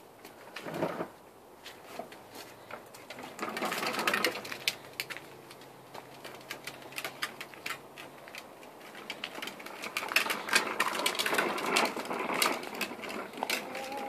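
A plastic toddler tricycle pushed over concrete, its hard plastic wheels rolling and rattling with quick clicks. The rattling comes in two spells, a short one a few seconds in and a longer one near the end.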